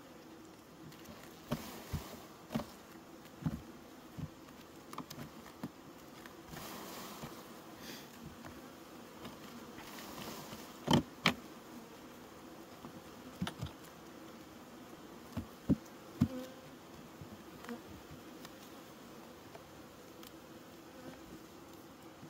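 Honeybees buzzing with a steady hum over an open hive, with scattered sharp clicks and knocks as a metal hive tool and wooden frames are worked, the loudest a pair of knocks about halfway through.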